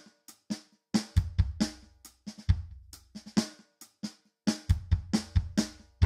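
Background music: a drum kit playing a beat of bass drum, snare and hi-hat.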